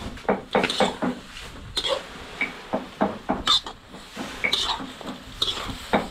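Metal spatula scraping and clanking against a wok while chopped meat is stir-fried, in short irregular strokes about two a second.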